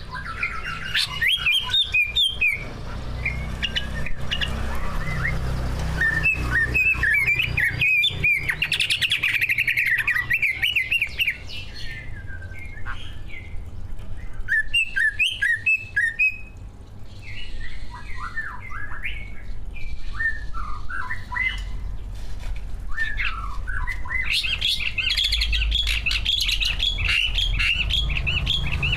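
Cucak ijo (greater green leafbird) singing a fast, varied song of chirps, trills and whistled phrases, full of imitated calls of other birds, with short pauses midway.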